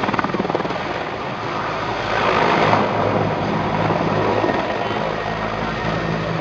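Mi-24 attack helicopter flying a low display pass: a rapid rotor beat over the rush of its twin turboshaft engines, with steady low engine tones. The sound swells about two seconds in as it climbs away.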